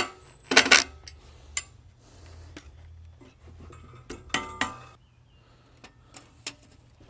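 Metal clanks and clicks from handling the chainsaw mill's aluminium frame and quick-release cam-lever clamps: a few sharp knocks, the loudest about half a second and four seconds in, some ringing briefly.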